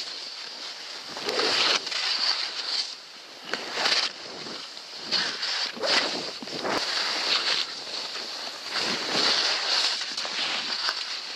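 Skis swishing through deep powder snow in a run of turns, the hiss swelling with each turn about every second or two.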